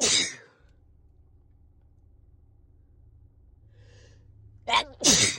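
A person with a head cold sneezing: the tail of one sneeze at the start, then a soft gasping in-breath about four seconds in, followed by a sharp catch and another loud sneeze near the end.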